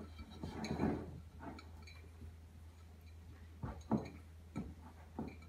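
Hands squeezing and pressing soft Welsh cake dough in a stoneware mixing bowl, with a few sharp clicks and knocks a little past the middle, over a steady low hum.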